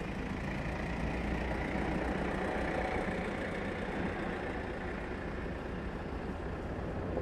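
A vehicle engine idling steadily, a low, even rumble.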